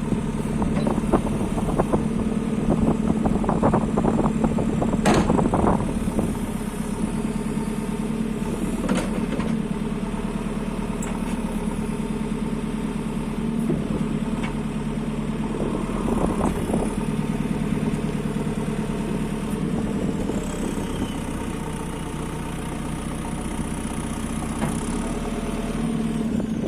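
JCB 3CX backhoe loader's diesel engine running steadily, with a cluster of clanks and knocks from the machine in the first few seconds and a couple more later on. A faint high whine rises and falls near the end.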